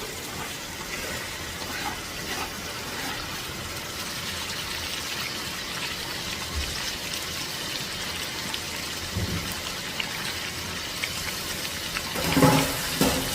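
Beef and freshly added tomatoes sizzling in oil in a pot: a steady crackling hiss. A few louder knocks near the end.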